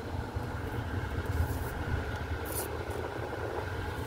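Steady low rumble of a car heard from inside the cabin, with a faint even hiss over it and one short high-pitched tick about two and a half seconds in.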